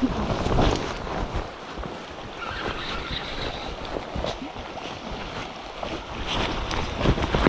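River water rushing past with wind buffeting the microphone, gusting near the start and again toward the end, and light rustling and footsteps through grass and brush on the bank.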